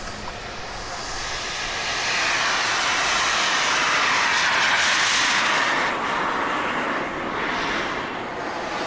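Radio-controlled model jet's turbine engine at full power on its takeoff run. The rushing jet noise grows louder over the first couple of seconds as the jet rolls past, then fades as it lifts off and climbs away.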